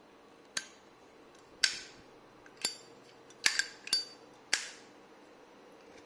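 Zippo windproof lighter clicking and clinking as it is handled: six sharp metallic clicks over about four seconds, a few with a short ring.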